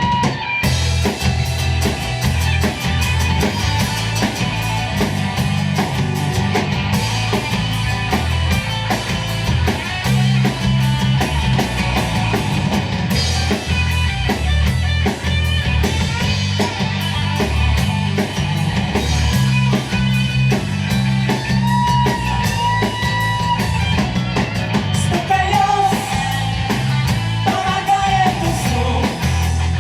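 A rock band playing live, with drum kit, bass and electric guitars.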